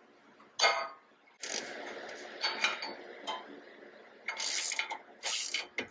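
A ratchet turns jacking bolts threaded into a rust-stuck front brake rotor on a 3rd-gen Toyota Tacoma, pressing it off the hub. Clicking and metallic grinding are followed near the end by several short, loud metallic cracks as the rust bond gives and the rotor works loose.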